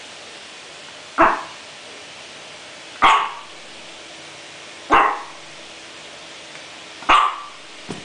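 Chihuahua sneezing four times, about two seconds apart, each a short sharp snort.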